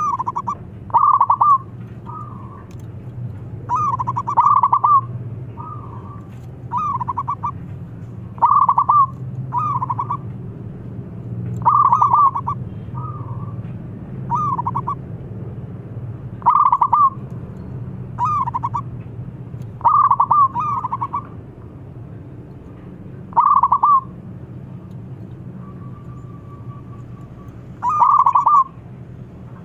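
A young local zebra dove (perkutut), thick-voiced, cooing in short bursts of rapid staccato trilled notes. The bursts come every one to three seconds, with a longer pause near the end, over a steady low hum.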